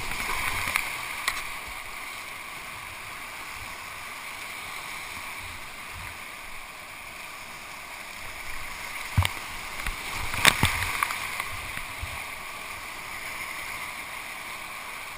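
Whitewater rapids rushing and splashing around a kayak, heard close up from on the boat. The splashing swells near the start and again about nine to eleven seconds in, where a few sharp knocks stand out.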